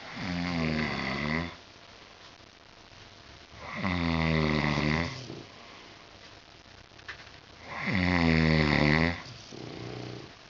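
A sleeping pet snoring loudly, three long pitched snores about four seconds apart, followed by a fainter, shorter snore near the end.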